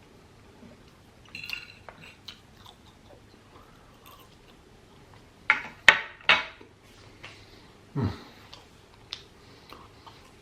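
Close-miked chewing and eating of chicken biryani, with scattered soft clicks and a burst of three loud sharp clicks about six seconds in. A shorter, lower sound drops in pitch about eight seconds in.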